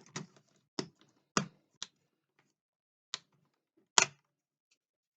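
Sharp plastic clicks and snaps, about six of them spaced irregularly with the loudest about four seconds in, as the laptop's plastic power button cover is lifted off and its clips let go.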